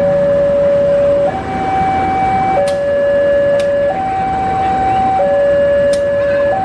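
Level-crossing warning alarm sounding a steady two-tone hi-lo signal, switching between a lower and a higher tone about every second and a quarter, with a few faint sharp clicks: the signal that a train is approaching the crossing.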